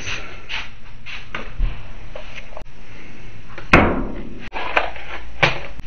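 A few scattered knocks and thumps over a steady hiss, the loudest a sharp knock a little past the middle and two more near the end.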